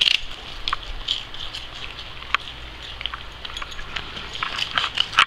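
Dogs crunching and chewing ice cream cones: irregular crisp cracks and crackles of the wafer breaking between their teeth.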